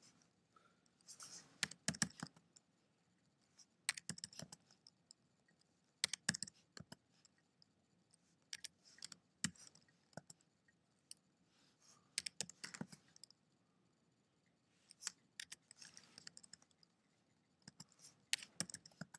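Short, faint bursts of typing on a computer keyboard: a few keystrokes at a time, about every two to three seconds, as numbers are keyed into spreadsheet cells one after another.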